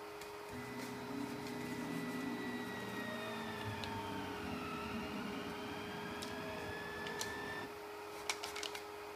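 Stepper motors of a delta 3D printer whining as the print head moves, several tones gliding up and down against each other, stopping abruptly about three quarters of the way through. A few light clicks follow near the end.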